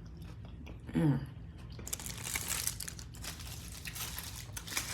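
A food wrapper crinkling and rustling as it is handled, most likely around a pack of tortillas being opened; it starts about two seconds in after a short hummed "mm".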